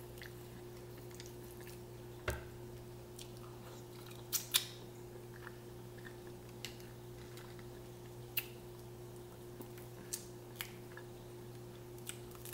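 Scattered small cracks and clicks of crawfish shells being peeled and bitten, with chewing, over a steady low hum.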